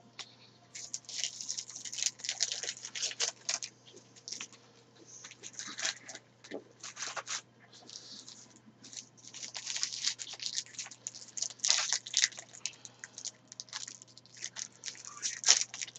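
Irregular crinkling and rustling of trading cards and foil card-pack wrappers being handled and shuffled.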